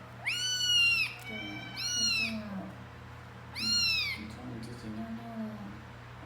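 Domestic cat meowing three times in loud, drawn-out calls, the first the longest, with fainter low sounds between them. This is a cat calling out while it poops.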